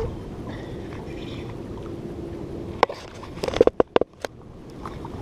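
Steady wind and sea noise on a small boat, with a quick cluster of sharp clicks and knocks about three to four seconds in.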